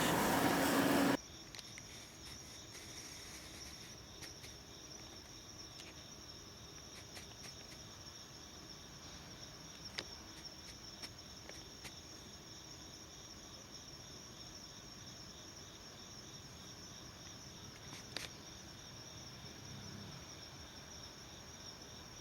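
Faint, steady high-pitched chirring of insects such as crickets, with a few soft clicks. A louder noise cuts off suddenly about a second in.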